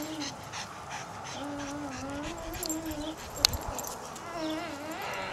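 Boston terrier whining during play: long, wavering whines, the longest lasting nearly two seconds, with a short sharp click about three and a half seconds in.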